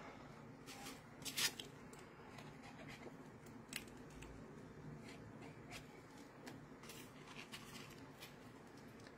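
Faint rustling and light clicks of paper tags being handled and laid down on a scrapbook page, the loudest click about one and a half seconds in.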